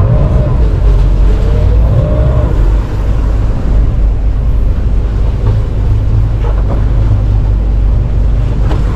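Wind buffeting the microphone on an open fishing boat at sea, with a steady low rumble and the wash of water. A faint wavering tone rises and falls in the first two seconds or so.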